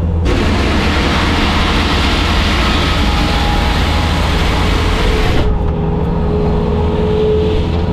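Bobcat skid steer's diesel engine running steadily under the operator. A loud rushing noise overlays it from the start and cuts off suddenly about five and a half seconds in.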